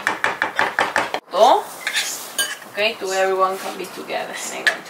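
Wooden spatula scraping and stirring a thick filling in a metal frying pan: a run of quick scrapes and clinks. Two short pitched sounds come near the middle, a rising one about a second and a half in, which is the loudest moment, and a steady one around three seconds in.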